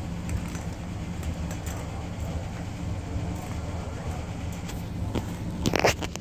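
Plastic ring-track cat toy being batted and shoved about by a kitten: light clicks and rattles, then a loud plastic clatter near the end as the toy is knocked over. A steady low hum runs underneath.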